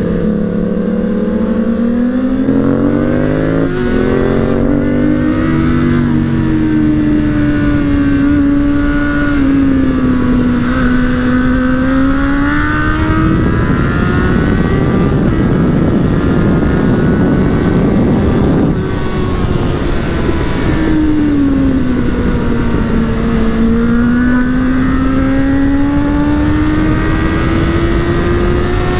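Suzuki Bandit 600's inline-four engine heard from the rider's seat, its pitch climbing and falling several times as the throttle is opened and eased off. For about five seconds midway the engine tone is half buried under a rush of wind noise.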